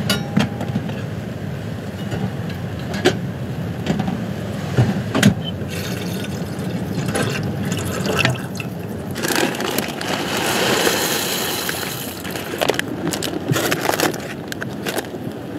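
Water poured from a plastic bottle into a metal cooking pot, a steady splashing pour lasting a few seconds in the middle. Before and after it come scattered knocks and light clatter of things being handled.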